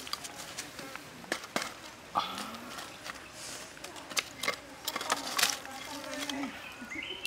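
Dry twigs and split bamboo being handled over a wood fire's embers: a string of sharp clicks and snaps, irregularly spaced.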